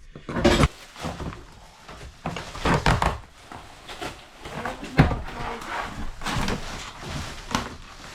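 Irregular knocks and thuds as interior wall panelling and trim are pulled and pried off inside an RV camper during demolition, with the loudest knock about five seconds in.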